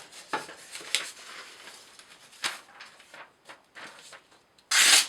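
Emerson Mini Commander's 154CM blade slicing paper in a sharpness test after cardboard cutting: a few faint paper rustles, then one loud, brief swishing slice near the end.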